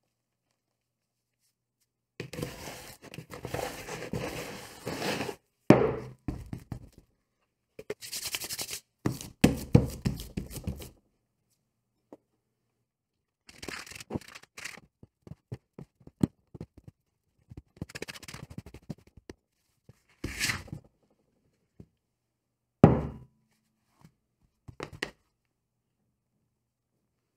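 Rye dough being worked by hand and with a plastic dough scraper on a floured wooden board: bursts of scraping, rubbing and sticky tearing, broken by a few dull thunks, the loudest about six seconds in and again near the end.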